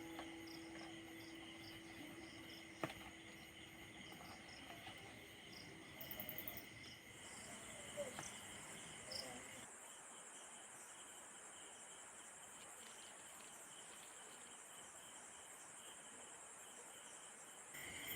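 Faint, steady chirring of crickets or other insects, with a single sharp click about three seconds in.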